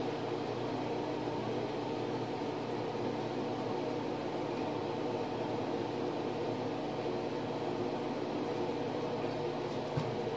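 Steady mechanical hum of a running motor or fan, with one faint click near the end.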